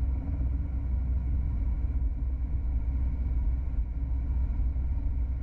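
Car on the move: a steady, low rumble of engine and road noise with no change in pace.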